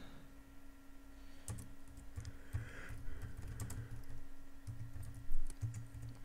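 Typing on a computer keyboard: a run of uneven key clicks starting about a second and a half in, over a steady low hum.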